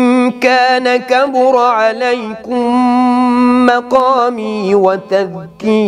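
A man reciting the Quran in a melodic chant, holding long ornamented notes that waver up and down, with a few brief breaks between phrases.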